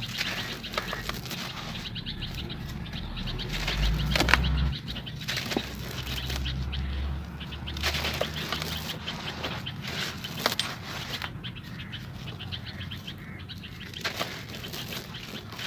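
Dry, crumbly dirt chunks being crushed and crumbled, a dense crackling crunch with frequent sharp snaps. There is a deeper rumble from about four to eight seconds in.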